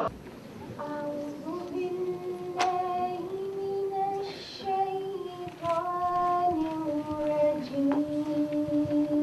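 A woman singing alone and unaccompanied, in long held notes that step from pitch to pitch and dip near the end. A sharp click sounds once about two and a half seconds in.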